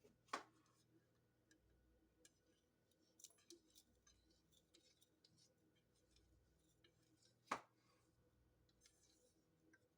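Dry seasoning being spooned through a funnel into a glass jar: two sharp knocks, about a third of a second in and about seven and a half seconds in, with faint scattered ticks between.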